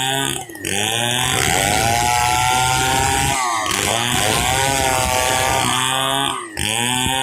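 Stihl 070 two-stroke chainsaw running hard while ripping a log lengthwise into planks. Its engine pitch swings under load, and three times (about half a second in, about three and a half seconds in, and near the end) it briefly drops off and picks back up.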